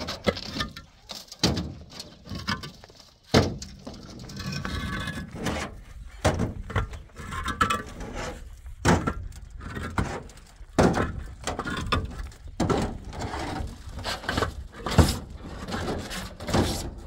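Hollow concrete blocks knocking and scraping against each other and on a metal pickup bed as they are handed down and stacked, in irregular clacks, a few of them sharp and loud.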